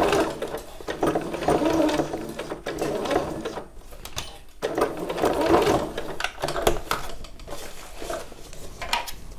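Electric domestic sewing machine running in short bursts, sewing a straight stitch through felt appliqué. It stops briefly about three and a half seconds in, runs again for about two seconds, then stops and only quieter, patchy sounds follow near the end.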